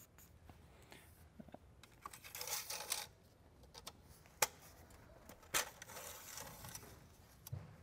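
Paper shop towel rustling and crinkling as an oil dipstick is wiped, then two sharp clicks, about four and a half seconds in and a second later, as the dipstick is pushed into its tube and drawn back out.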